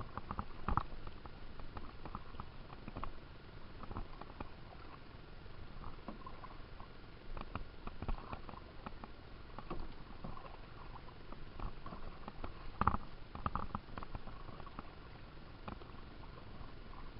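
Canoe paddling: paddle blades dipping into the water and dripping, with irregular light splashes and knocks against the canoe, one louder about 13 seconds in.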